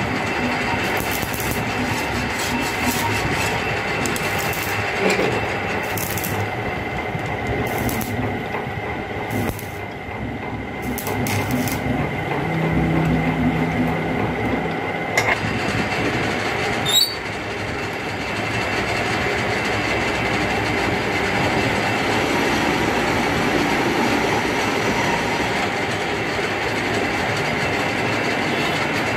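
Metal lathe running, its four-jaw chuck spinning a threaded steel stud, with a steady mechanical rumble and whine. A couple of sharp clicks about halfway through.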